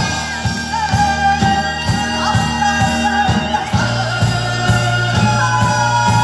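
Korean traditional orchestra music with a steady beat, about two strokes a second: a held melody line that bends in pitch over a low sustained bass.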